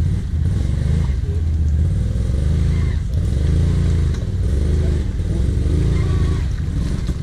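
ATV (quad) engine under load on a steep, rutted mud climb, revving in repeated surges with short dips between them over a deep, steady engine rumble.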